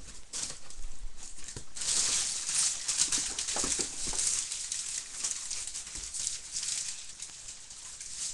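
Cardboard box being opened by hand: the flaps and lid scraping and rustling, with scattered taps and knocks, louder from about two seconds in.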